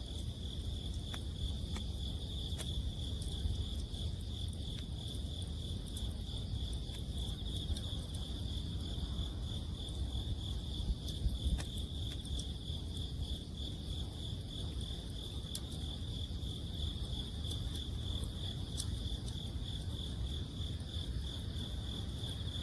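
Autumn night insects singing in a steady, high, pulsing chorus, with scattered sharp crackles from a burning wood campfire and a low steady rumble underneath.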